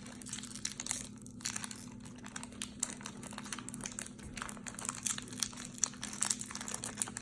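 Plastic packaging and small sachets crinkling as they are handled, in many small irregular crackles.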